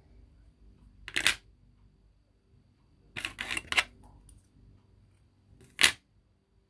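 Short crisp clicks and snips from hands working with craft materials at a table: one, then a quick run of about four, then one more near the end.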